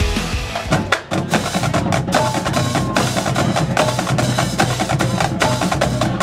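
Marching drumline playing snare drums in a fast, dense rhythm of sharp strokes. Other music cuts off about a second in as the drumming takes over.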